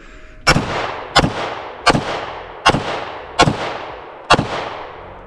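Six shots from a Bear Creek Arsenal Grizzly 101, a 9mm Glock-pattern pistol, fired at a steady pace about three-quarters of a second apart. Each report is followed by a short echo. The pistol cycles with no stoppage between shots, feeding cleanly from an extended magazine.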